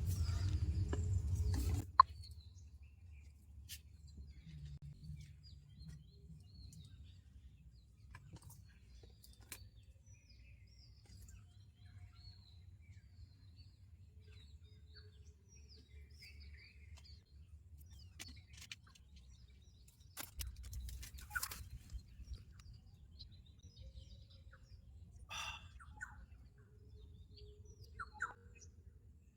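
Forest birds calling and chirping faintly, scattered short calls with a few louder ones later on, over a low steady background hum. The first two seconds are louder and noisy, ending in a sharp click.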